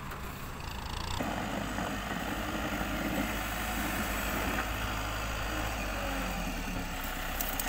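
Farm tractor's diesel engine running steadily as it pushes fill dirt with its front dozer blade; the sound grows fuller about a second in.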